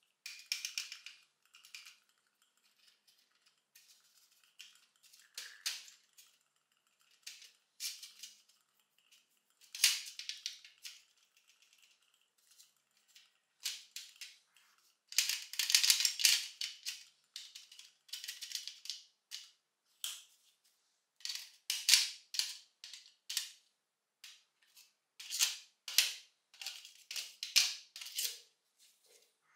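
Paintbrush bristles scrubbing rusty metal nailer parts in a steel tray: scratchy strokes in quick irregular bunches with short pauses between them.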